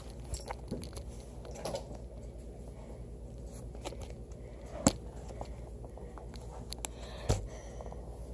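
Handling noise from a phone being moved about close to the microphone: light rubbing and scraping, with a few sharp knocks, the loudest about five seconds in and another about seven seconds in, over a low steady hum.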